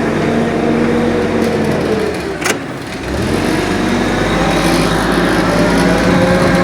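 Forklift engine running as it is driven. About two and a half seconds in the engine note drops away, there is a sharp clack, and then the engine picks up again.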